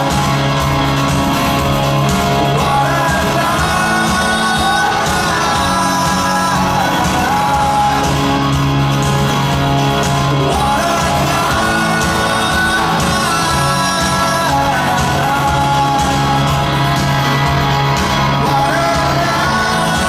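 Live rock band in full flow: electric guitars, bass and drums under a sung lead vocal, loud and steady, heard from the audience in a large arena hall.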